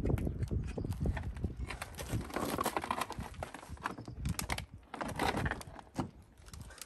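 Plastic front bumper cover of an Audi A6 (C7) being handled, lowered and turned over onto a dust sheet: irregular plastic knocks and clatter with scraping and rustling.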